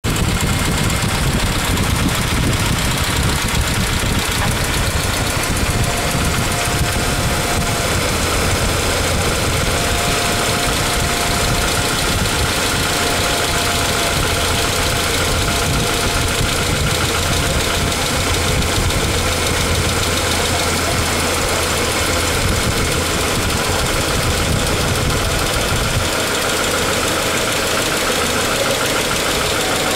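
Ford Ranger engine running steadily with a loud noise from the valvetrain, apparently the lifters. The deepest part of the rumble drops away about 26 seconds in.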